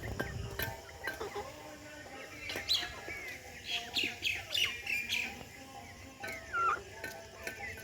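Young chickens peeping: a quick run of short, high, falling chirps in the middle, and a lower falling call near the end.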